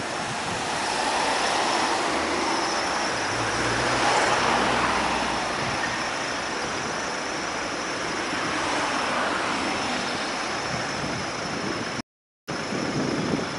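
Road traffic noise as a Chevrolet Camaro SS with its 6.2-litre V8 pulls away into traffic, its low engine note strongest about three to five seconds in. The sound cuts out for about half a second near the end.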